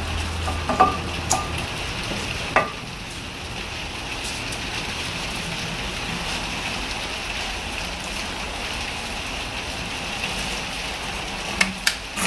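A few sharp metallic clicks and knocks of brake pads and their fittings being handled and seated in a disc-brake caliper bracket, a cluster of them early and two near the end, over a steady hiss.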